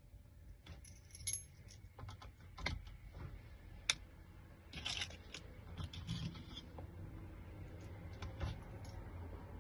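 Metal keys and small lock parts clicking and jingling as they are handled: scattered light clicks, a sharp click about four seconds in, and short jingles around one and five seconds in.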